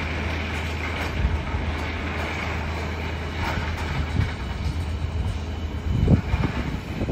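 A large engine running with a steady low hum, with a few short metal knocks and clanks, the loudest about six seconds in.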